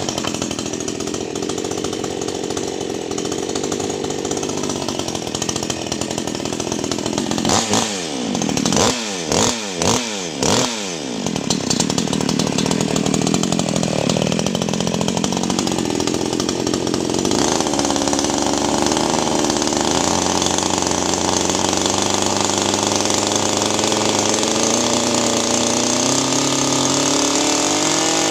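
New Newwest 788 58cc two-stroke chainsaw starting on the pull and running. About eight seconds in the throttle is blipped in about five quick revs. It then runs steadily, its pitch creeping up toward the end, as the new saw is warmed up with gentle throttle rather than taken straight to full revs.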